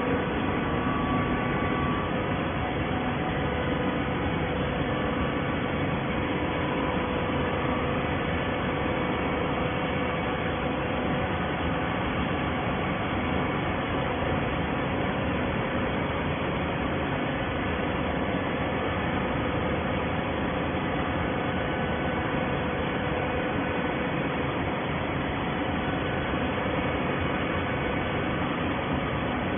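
Hydraulic baler's power unit running: a steady, even machine hum with a faint held tone.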